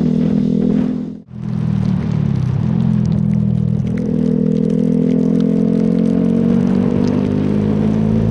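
Motorcycle engine running under way on a wet road, with a hiss of wind and tyre noise. The sound cuts out briefly just over a second in; after it the engine note sags a little, then rises again from about four seconds in and holds steady.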